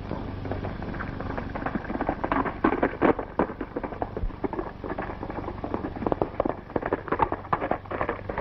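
Hoofbeats of galloping horses on a dirt trail: a fast, irregular clatter that grows louder about two seconds in, over a steady low hum.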